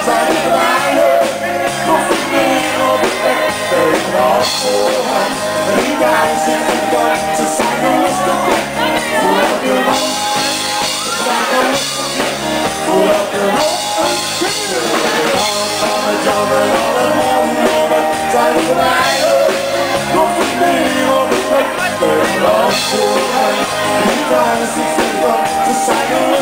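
Live band playing loudly, a singer over the band with drums.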